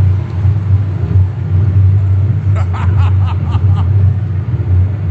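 Steady low rumble, like a running engine or a low drone, with a few faint voice-like syllables about halfway through.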